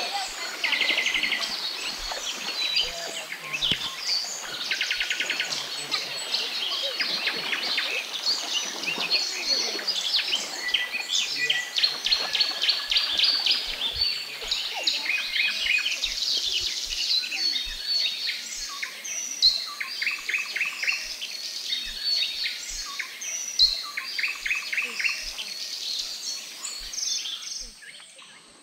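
Chorus of wild birds chirping and singing, with rapid trills repeating every few seconds; it fades near the end.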